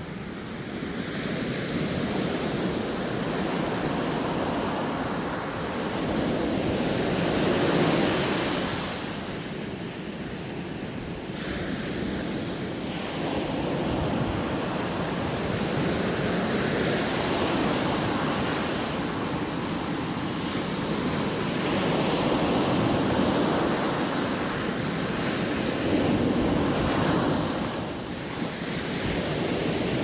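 Ocean surf breaking and washing up a sandy beach, swelling and easing with each set of waves every few seconds.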